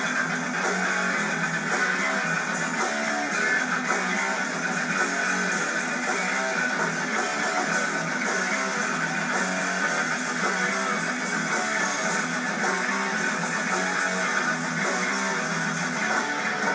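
A hardcore band playing live: distorted electric guitars strummed hard over drums with fast, steady cymbal hits. The recording sounds thin, with almost no bass.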